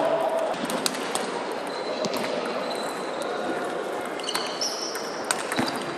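Sharp clicks of a table tennis ball striking bats and the table, half a dozen at irregular spacing, over the hum of a large sports hall, with a few brief high squeaks near the end.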